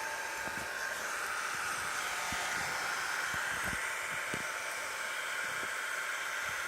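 Hair dryer blowing steadily, drying the paint on a foam squishy. A few faint knocks sound now and then underneath.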